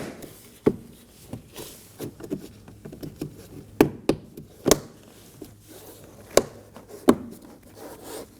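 Plastic door-panel trim pieces being pushed and snapped into place on a car door: about half a dozen sharp clicks and knocks, with light rubbing of plastic on plastic between them.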